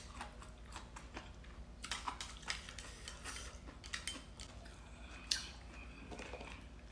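Quiet eating of stir-fried rice noodles: soft chewing with scattered light clicks of wooden chopsticks against a porcelain bowl, and one sharper clack a little past five seconds in.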